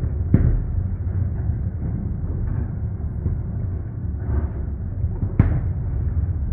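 Fireworks bursting: a continuous low rumble of shell explosions, with two sharper bangs about half a second in and about five seconds later, and a few fainter pops.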